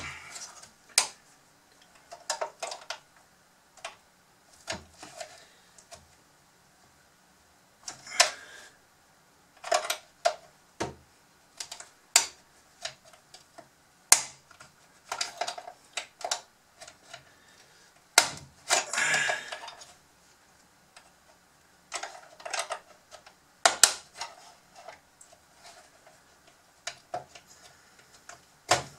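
Screwdriver and probe clicking, tapping and scraping against the hard plastic housing of a Bruder CAT D11 toy bulldozer while prying at its snap-fit tabs: irregular clicks and short scrapes, with one longer scrape about two-thirds of the way through.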